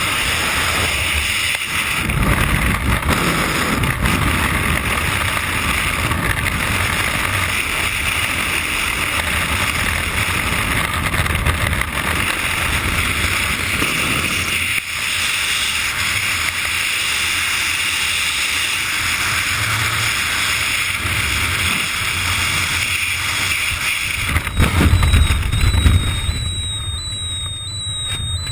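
Freefall wind rushing over a helmet camera's microphone. About 25 seconds in, the rush surges as the parachute deploys, then falls away under the open canopy, and a high electronic tone starts.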